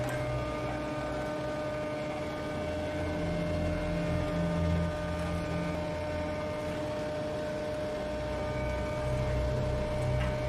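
Steady machine hum over a low engine rumble that swells and eases a couple of times.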